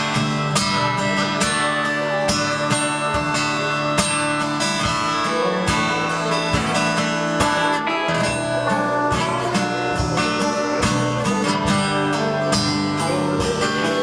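Live worship music without singing: an acoustic guitar strumming over held chords.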